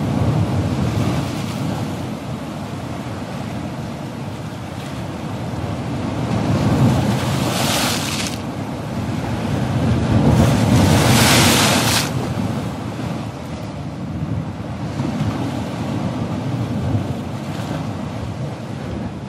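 Turbulent water rushing below a dam's spillway, a steady heavy rush with louder, hissier surges around eight and eleven seconds in, and wind on the microphone.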